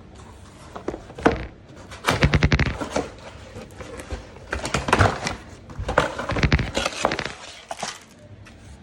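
Packaging being handled as a box is opened: bursts of rapid crackling clicks and knocks in several clusters, loudest about two seconds in.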